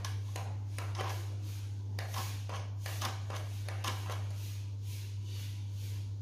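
Irregular light clicks and rattles of a plastic toy RC car being handled and set down, over a steady low hum.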